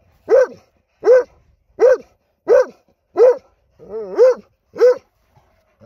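A dog barking steadily at a weasel holed up in a rock crevice: about seven short barks, one roughly every 0.7 seconds, each rising and then falling in pitch, with a wavering double bark about four seconds in.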